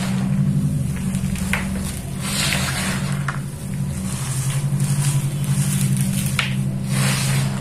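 Hands crumbling and sifting soft, dry powdery red dirt: repeated waves of soft crunching and a sandy hiss as the dirt pours through the fingers. A steady low hum sits under it and is louder than the crumbling.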